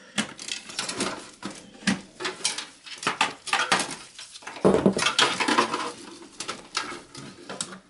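Irregular clicks and rattles of computer cables and plastic connectors knocking against a desktop PC's sheet-metal case as SATA and power cables are unplugged and pulled free.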